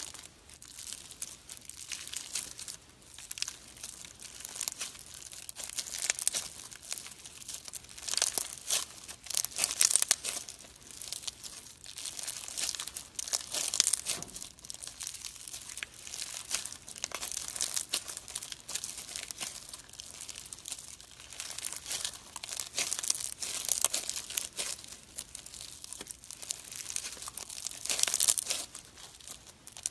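Crunchy slime being squeezed, folded and stretched between the fingers, giving a dense crinkly crackling in irregular louder bursts.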